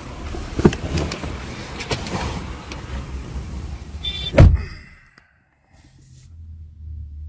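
Haima S5 front door handled and a person getting into the seat, with a few clicks and rustling, then the door shut with one solid thud about four and a half seconds in.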